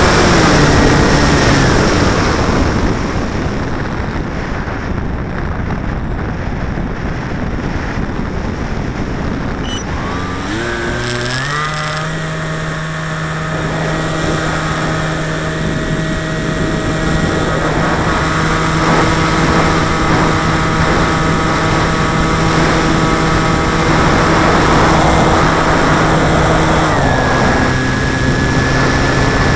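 Electric motor and propeller of a battery-powered radio-controlled aircraft whining loudly, heard from its onboard camera, over rushing air. The pitch drops about two seconds in, climbs back up in steps around ten to twelve seconds in, and drops again near the end as the throttle changes.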